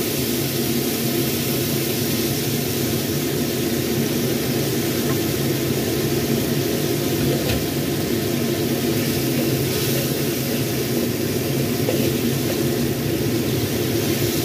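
Steady roar of a gas wok stove and kitchen ventilation, a constant whooshing noise with a low hum that never changes, under a wok of sardines simmering in tomato sauce.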